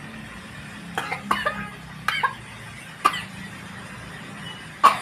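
A young girl coughing in several short, sharp bursts, some in pairs, the loudest near the end.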